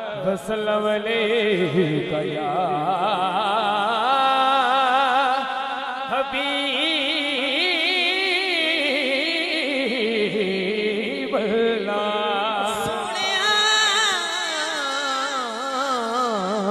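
A man singing devotional naat couplets in long, melismatic phrases with a heavy wavering vibrato, the notes held and gliding up and down.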